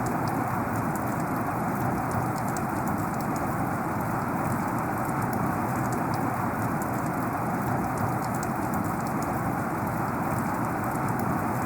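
Heavy rain falling steadily: a dense, even hiss with many scattered sharp taps of individual drops.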